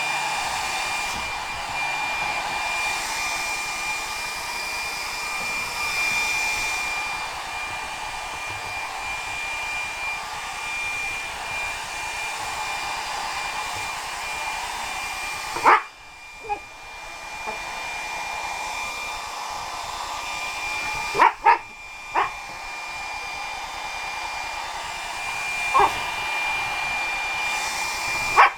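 Hand-held hair dryer running steadily with a thin high whine, while a boxer dog barks sharply about six times in the second half, two of them in quick succession. The barking is the dog objecting to the blow dryer.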